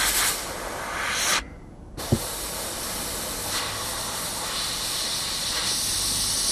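Airbrush spraying thinned paint, a hiss of air. It stops for about half a second a little over a second in, there is a click, and then it hisses steadily on.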